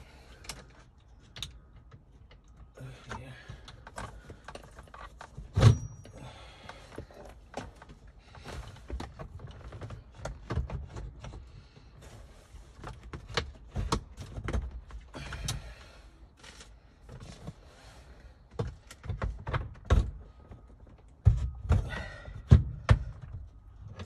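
Irregular clicks, knocks and light rattles of hands working a car's gear shift assembly into place, with one sharp knock about five and a half seconds in and a burst of knocks near the end.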